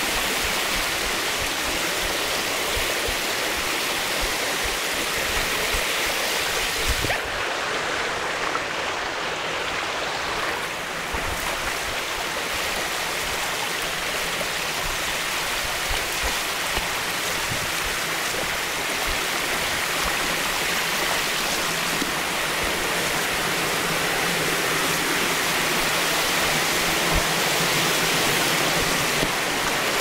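Steady rushing water of McWay Creek where it spills over McWay Falls. The hiss turns briefly duller about seven seconds in.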